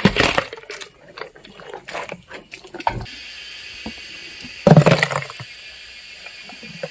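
Hippopotamus biting and chewing watermelon and melon: wet crunching and squelching, with a loud crunch at the start and another about five seconds in.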